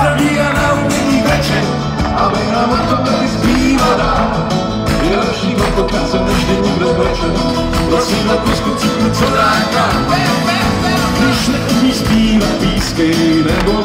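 Live band playing a song, with drums and a steady bass line under a wavering melodic line.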